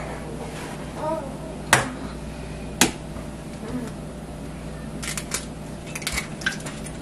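Kitchen utensils and a mixing bowl: two sharp knocks about a second apart, then a quick run of lighter clinks and taps near the end.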